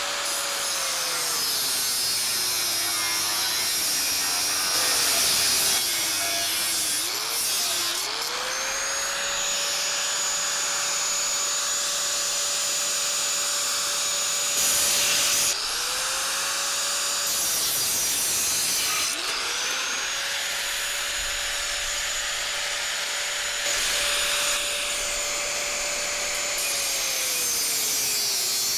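Angle grinder cutting through the steel bars of an IBC tote cage. The motor whine sags in pitch each time the disc bites into a bar and climbs back as it frees, over several cuts in a row, with a few brief louder grinding moments.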